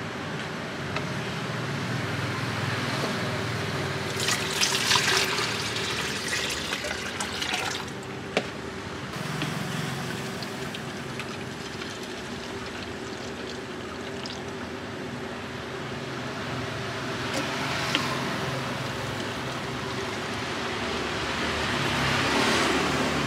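Fruit juice poured from a plastic jug into plastic bottles, the liquid running and splashing as the bottles fill, in several pours, the longest a few seconds in. A steady hum runs underneath.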